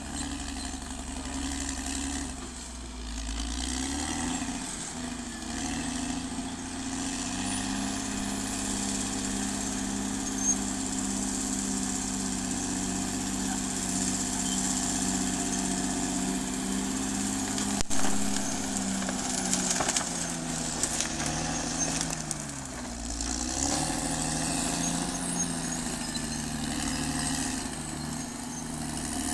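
Caterpillar D6R XL bulldozer's diesel engine running, its pitch sagging and then recovering twice, about four seconds in and again about twenty-two seconds in. A single sharp knock sounds about eighteen seconds in.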